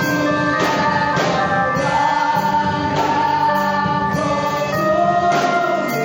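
Gospel music: a choir singing held notes over a band, with a few percussion strikes.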